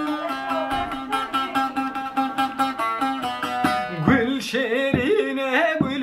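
Bağlama (long-necked saz) strummed rapidly over a steady low drone note; about four seconds in, a man's voice starts singing a Kurdish folk melody over it.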